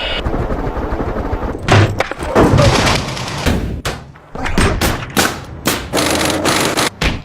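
Irregular volleys of sharp bangs and heavy low booms, some in quick strings, with a short lull about four seconds in.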